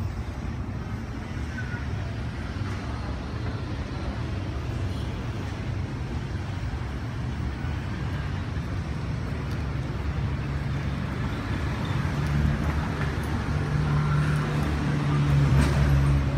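City street traffic noise: a steady rumble of road vehicles, with a low engine hum growing louder in the second half as a vehicle comes close.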